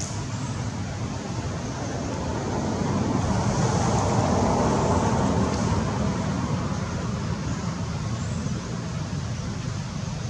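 Distant road traffic, with one vehicle passing that swells to its loudest about four seconds in and then fades.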